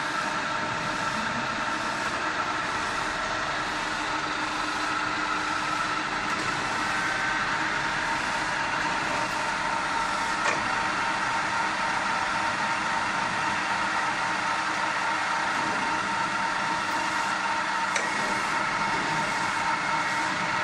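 LM1450C milling machine running: a steady mechanical hum of its motor and gearing, with several steady tones. A couple of sharp clicks sound, about ten seconds in and again near the end.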